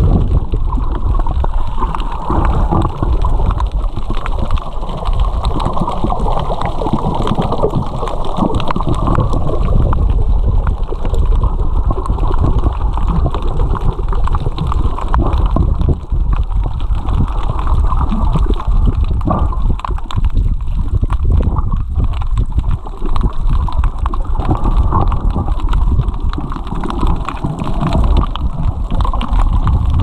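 Muffled rumbling water noise picked up by a camera held underwater: a continuous dull wash of moving water with fine crackle, heard with the highs cut off.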